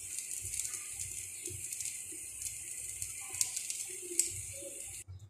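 Ghee sizzling under a paratha frying in a flat pan: a steady hiss with scattered crackling pops. It cuts off suddenly just before the end.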